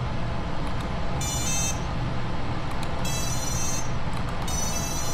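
Brushless quad motors beeping as ESC confirmation tones, three short bursts of high tones about a second and a half apart, over a steady low hum. The tones count out the new value of the ESCape32 duty-ramp setting after each DShot programming command.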